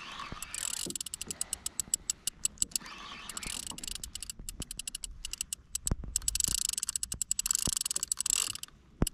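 Large spinning reel (Daiwa Certate SW 10000) being wound against a hooked fish: a fast, even run of clicks from the reel's gears as the handle turns, pausing briefly a couple of times, with a few sharper knocks.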